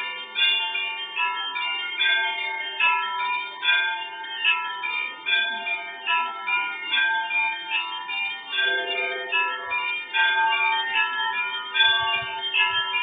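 Russian Orthodox church bells ringing: many bells of different pitches struck in quick, uneven succession, their tones overlapping and ringing on.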